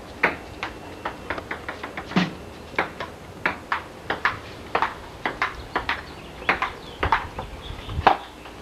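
Irregular sharp clicks and knocks, a few a second, with a low rumble and a louder knock near the end.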